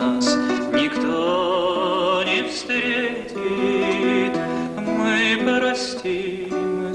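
A male singer performing a Russian Gypsy romance in long, held notes with broad vibrato, over acoustic guitar accompaniment.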